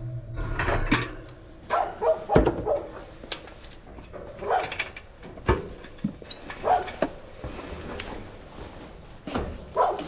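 A dog barking repeatedly in short, separate barks spread a second or two apart, with a few sharp knocks in between.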